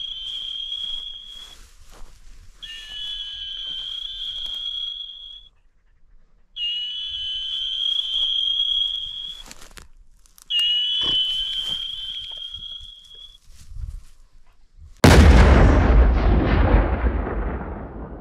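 Four long, steady high-pitched tones, each about three seconds long with a short gap between them, then a sudden loud explosion sound effect that fades away over the last few seconds.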